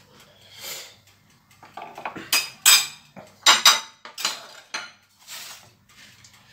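A metal spoon scraping and clinking against a metal pizza pan and a plate: soft scrapes, then a handful of sharp ringing clinks between about two and four seconds in.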